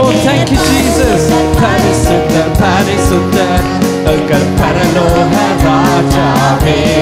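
Worship song: a man sings into a handheld microphone over music with a steady drum beat.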